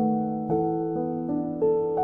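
Slow, gentle piano music, with new chords struck about every half second.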